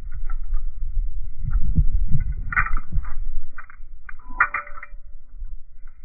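Wind buffeting the microphone in uneven gusts, with scattered light clicks and clacks from a mini butterfly knife's handles as it is flipped, the loudest about two and a half and four and a half seconds in.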